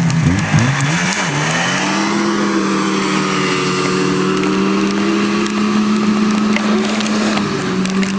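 Vintage snowmobile engine revving: its pitch dips, then climbs over the first two seconds and holds steady at high speed for the rest.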